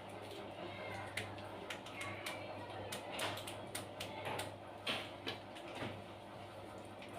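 A person chewing and crunching crisp food close to the microphone: irregular crunches and mouth clicks, over a steady low hum.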